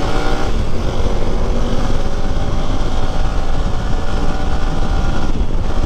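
Motorcycle riding along a road at a steady pace, its engine running with a steady note under heavy wind rumble on the handlebar-mounted microphone.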